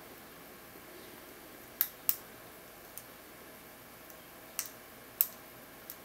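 Small sharp metallic clicks from a lock pick working the pin tumblers of a four-pin Zenith 38 padlock held under tension: about six clicks at irregular intervals, two of them louder.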